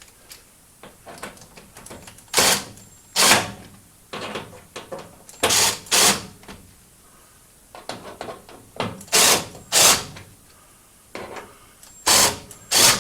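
Right-angle drill with a 5/16-inch nut driver running in short bursts, mostly in pairs, driving screws to fasten a damper to sheet-metal ductwork.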